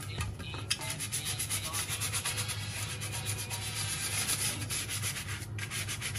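A stiff natural-fibre bristle brush scrubbing the soapy black insert of an air fryer in quick, repeated strokes.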